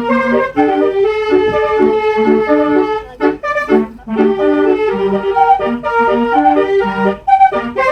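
Bus basuri (telolet) musical horn playing a tune in held notes that step up and down, breaking off briefly about three and four seconds in.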